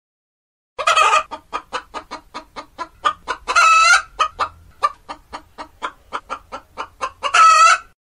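Domestic hen cackling: a rapid, even run of short clucks, about five a second, broken three times by a longer, louder squawk.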